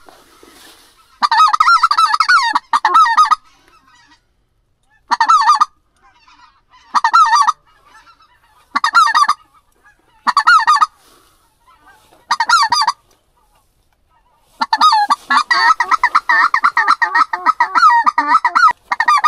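A goose call blown by a hunter, close by: short sets of honks every second or two, then a long run of rapid honks and clucks starting about 15 seconds in.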